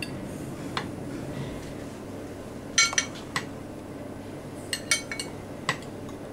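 A metal spoon and fork clinking against china plates and each other as sausage slices are lifted and laid out: a few sharp clinks in small clusters, about three seconds in and again about five seconds in.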